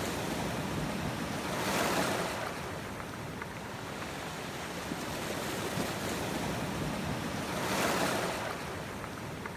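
Sea waves breaking on a shore, a steady wash of surf with two waves swelling and breaking, about two seconds in and again near the end.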